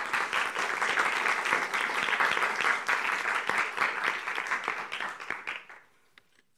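Audience applauding, thinning out to a few last separate claps near the end.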